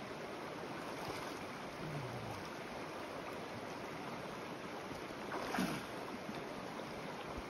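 Creek water running steadily over a rocky streambed, with one short, louder sound about five and a half seconds in.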